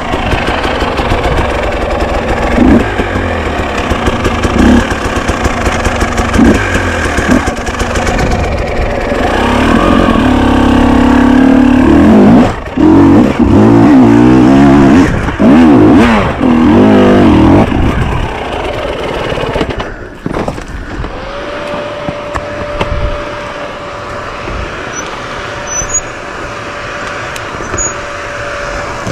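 Enduro dirt-bike engine revving up and down as the bike is ridden over rough off-road ground, loudest in the middle stretch. For the last several seconds it runs quieter and steadier, with a single steady tone.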